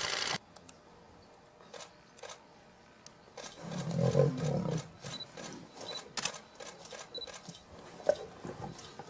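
A lion growls once, low and rough, for about a second and a half about halfway through, with scattered sharp clicks around it.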